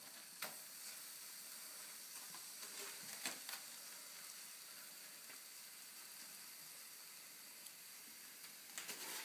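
A faint, steady hiss with a few soft scrapes and taps as a wet ash-and-water paste is smoothed by hand around a wood-fired bread oven's door to seal it.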